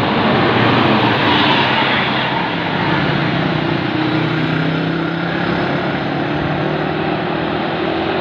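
Diesel engines of large buses running as two buses pass close by, a steady low engine note over heavy road noise.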